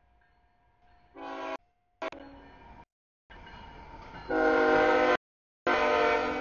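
CSX freight locomotive's air horn sounding a series of blasts for a grade crossing: two short ones, then two long, loud ones, over the low rumble of the train. The last blast fades away near the end.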